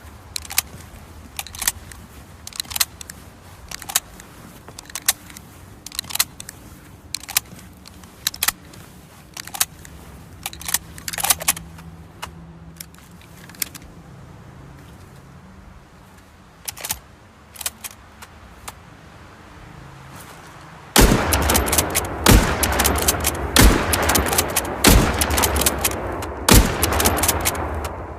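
Lee-Enfield bolt-action rifle shots, sharp single reports about a second apart. About twenty seconds in, a sudden loud stretch of many shots over dense noise, like a volley of massed rifle fire.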